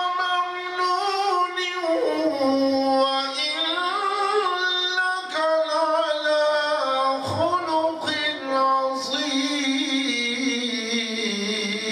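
A single high voice chanting in a melodic religious style, holding long notes and sliding between pitches with ornamented turns, the pitch sinking lower near the end.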